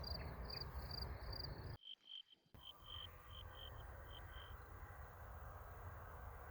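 Crickets chirping in short, evenly spaced pulses, about three a second, over a low outdoor rumble. The sound cuts out briefly about two seconds in. When it returns, a lower-pitched run of chirps lasts about two seconds and then fades, leaving only the faint rumble.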